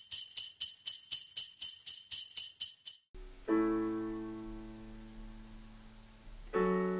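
Sleigh bells shaken in a steady rhythm, about four shakes a second, stopping about three seconds in. Then a keyboard plays a held chord that slowly fades, and a second chord comes in near the end: the intro of the song.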